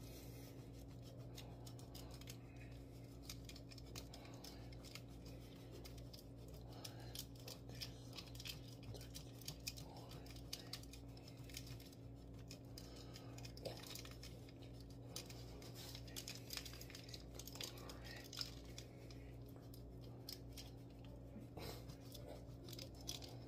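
A wedge of hard Parmesan cheese being grated on a flat handheld rasp grater: faint, irregular scraping strokes over a steady low electrical hum.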